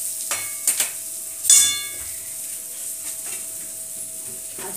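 Stainless steel kitchenware clinking as a metal spoon serves food from a steel kadai onto a steel thali: a few light clinks, then a loud ringing clang about one and a half seconds in.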